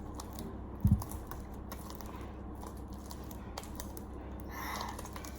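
Sticky failed homemade slime being handled, making small tacky clicks and smacks, with one low thump about a second in.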